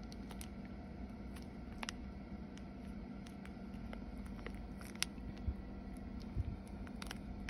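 Faint crinkling and clicking of a plastic dressing sachet being squeezed over a salad, a few soft ticks spread through, over a steady low hum.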